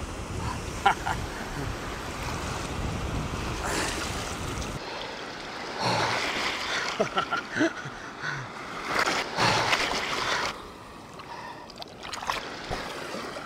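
Sea surf breaking and washing around a person standing waist-deep in the waves, in uneven surges. A low rumble sits under the water sound and stops about five seconds in.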